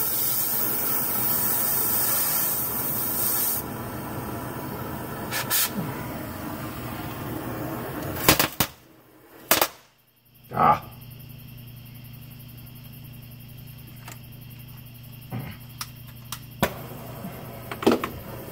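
Oxyacetylene cutting torch hissing loudly as it cuts through rusted, seized exhaust flange bolts, then dropping to a quieter hiss after about three and a half seconds. A few sharp knocks come about halfway through, followed by a low steady hum with scattered clicks.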